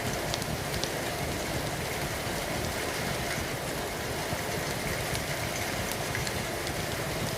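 Steady rain falling, with a few sparse, sharp crackles of a wood fire.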